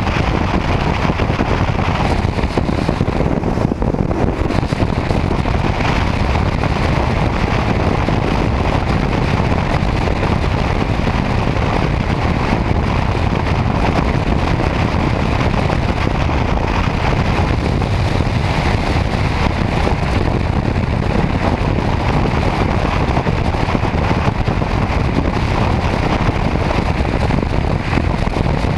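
Steady wind rush and road noise of a motorcycle cruising at highway speed, with wind buffeting the bike-mounted camera's microphone.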